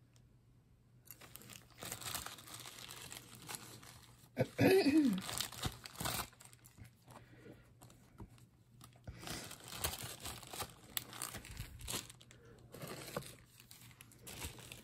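Clear plastic zip-top bag crinkling and rustling as jewelry is handled and sorted, with small clicks of metal pieces, loudest about four and a half seconds in.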